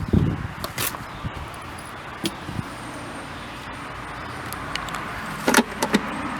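Scattered sharp clicks and light clinks of hand tools and plastic and metal parts as a car door speaker is worked free of the door, the loudest cluster coming a little before the end.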